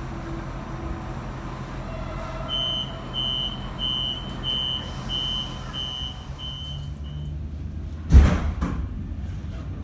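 Door-closing warning on a commuter electric train: a run of about eight high beeps, roughly one and a half a second, then the sliding doors shut with a loud thump about eight seconds in, over a steady low hum from the train.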